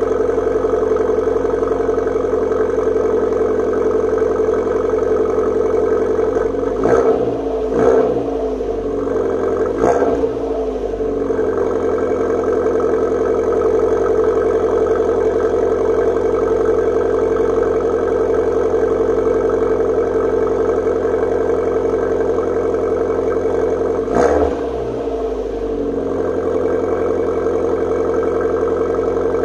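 Abarth 500's turbocharged 1.4 four-cylinder idling through a Niba Racing 200-cell sports catalytic converter and Inoxcar FICQ-03 rear silencer, a loud but deep exhaust note. There are three short throttle blips a quarter of the way in and one more about two-thirds of the way through, each settling back to idle.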